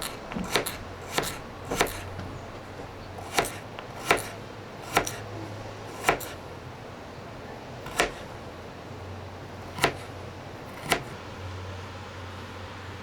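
Knife chopping on a cutting board: about a dozen sharp, separate knocks, quick at first, then slower and more spaced out, stopping near the end.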